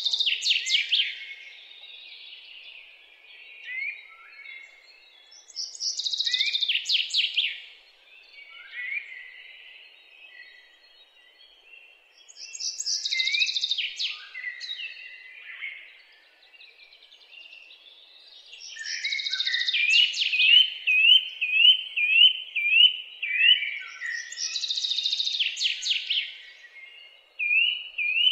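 Songbird singing: a high, quick song phrase repeated about every six seconds, with a run of short rising notes in the later part.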